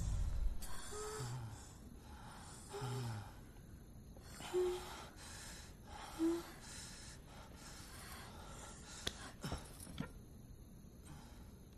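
A person breathing audibly with short, soft gasps and brief voiced sighs, several in turn about every couple of seconds. A few faint clicks follow near the end.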